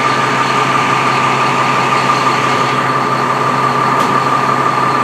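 Fire engine's diesel engine running steadily at idle, loud and close, with a steady high-pitched whine over it.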